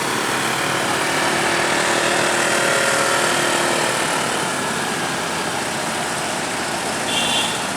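Heavy vehicle's engine running steadily amid road traffic noise, with a brief high-pitched beep near the end.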